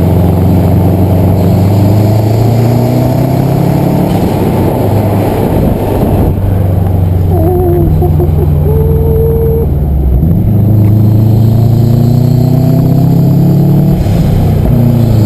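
Subaru Impreza's turbocharged flat-four engine pulling under acceleration, its note climbing in pitch and dropping back at gear changes about six and ten seconds in.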